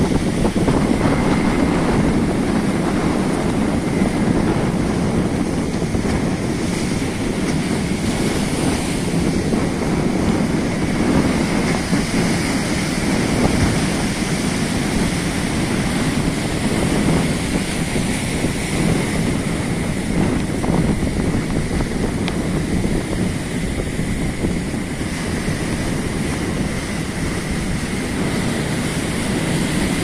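Ocean surf breaking and washing over shoreline rocks, with wind buffeting the microphone, a steady noise throughout.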